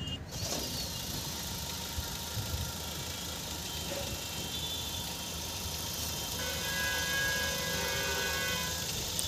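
Freshly overhauled Mahindra Scorpio S10 mHawk 2.2-litre four-cylinder turbo-diesel engine running steadily at idle, with its turbocharger and intercooler connected.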